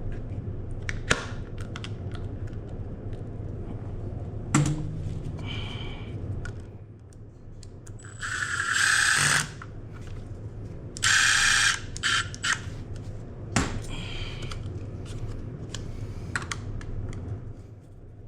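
Hand work on a dirt bike's plastic parts: scattered clicks and knocks as pieces are fitted, with two loud ratchet-like rasps of about a second each past the middle, over a steady low hum.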